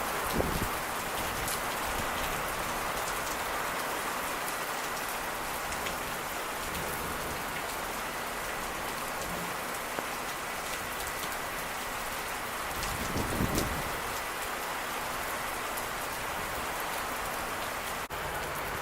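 Steady rain falling, with many individual drops ticking. Two short low rumbles stand out, one right at the start and one about thirteen seconds in.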